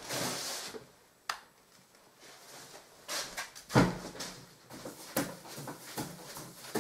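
A wallpaper paste brush swishing and slapping paste onto lining paper on a pasting table, in a run of short strokes about two a second, the loudest about four seconds in. Before that there is a rustle of paper being handled and a single sharp click.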